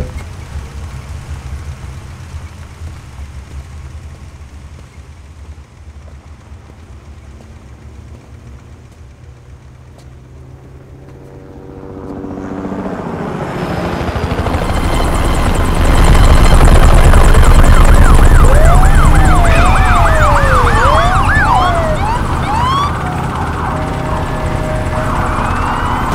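A low rumble, then police sirens rise in from about halfway: several sirens wail and yelp with quick rising and falling pitch over a loud low drone.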